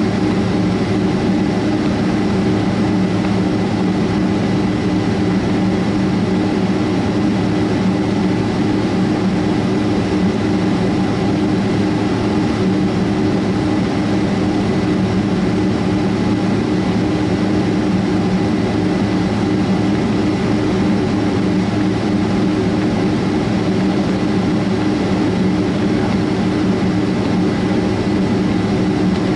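Boeing 767-300 jet engines idling, heard from inside the passenger cabin: a steady hum with a few held tones, the airliner standing on the taxiway waiting to take off.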